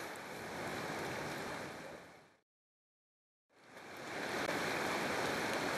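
Steady rush of river water, fading out about two seconds in to a second of complete silence, then fading back in.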